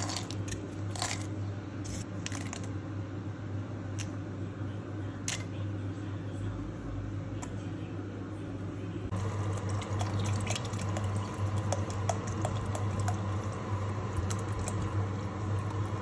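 A few separate clicks as almonds are dropped into a plastic bowl on a kitchen scale, over a steady low hum. About nine seconds in the sound changes to a pot of soup on the stove bubbling, with a dense patter of small pops.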